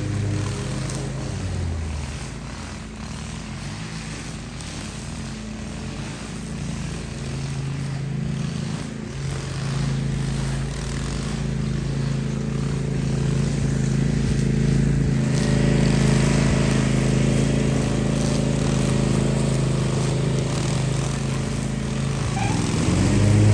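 Small petrol engine of lawn equipment running under load. It is quieter early on, grows louder and busier from about the middle, and dips and changes pitch briefly near the end.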